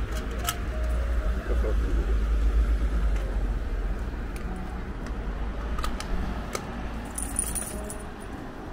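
Outdoor ambience: a steady low rumble, loudest in the first few seconds and easing off, with a few light metallic clinks and a brief high jingle near the end.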